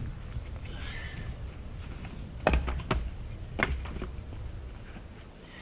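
Split firewood pieces knocking together as they are picked up and tossed aside: three sharp wooden clacks between about two and a half and three and a half seconds in, over a low steady rumble.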